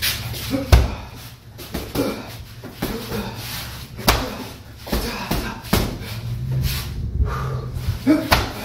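Boxing gloves punching a hanging heavy bag: a dozen or so irregular thuds, some in quick pairs, with a strong hit about a second in and another about four seconds in.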